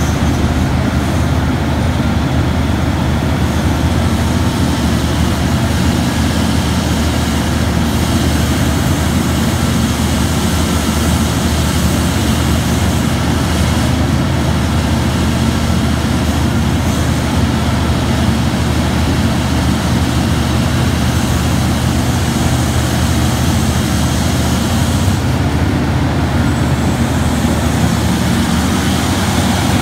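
Terex RH170 hydraulic mining shovel's diesel engine running steadily under load as it digs into the face and lifts a full bucket, a loud, even drone.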